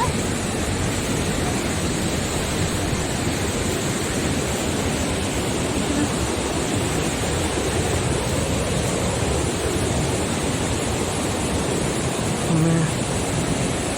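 Large waterfall's water pouring down in a steady, loud rush.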